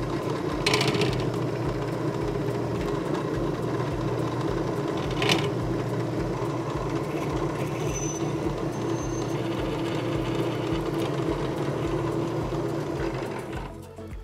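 Drill press running, a 4.2 mm tap drill boring holes in an aluminium block, with a steady motor hum and a couple of short clicks. The machine stops near the end.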